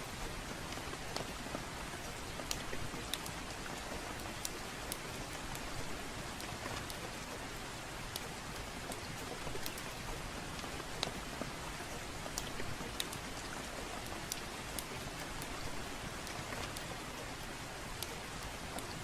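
Steady rainfall hiss mixed with the irregular sharp crackles and pops of a wood fire, a click every second or so.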